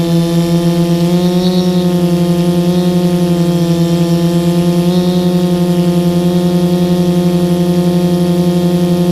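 Multirotor drone's electric motors and propellers whirring steadily in flight, picked up close by the camera mounted on the drone: a strong hum with a fast, even pulsing. The pitch rises slightly about a second and a half in and again about five seconds in.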